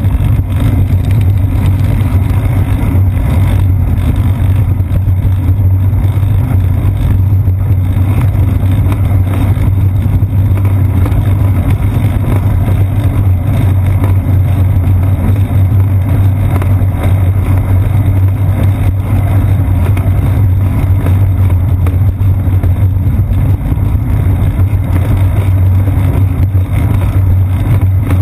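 Steady low rumble of road vibration and wind picked up by a seat-post-mounted GoPro Hero 2 in its housing as the bicycle rolls along a paved path, with no change over the stretch.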